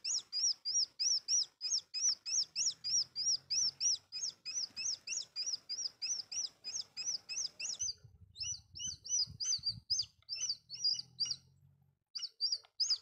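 A bird calling a rapid, even series of short, high chirps, about four a second. The series breaks off briefly about eight seconds in and then resumes. Low thumps sound during the break.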